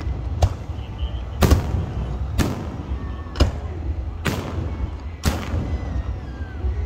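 Aerial fireworks shells bursting: six sharp booms, about one a second, each followed by a trailing echo.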